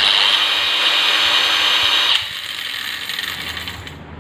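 DeWalt DWE4377 angle grinder running unloaded with no disc fitted, on speed setting 3: a loud steady high whine. It is switched off about two seconds in and then spins down. During the run its outer flange nut works itself loose on the spindle.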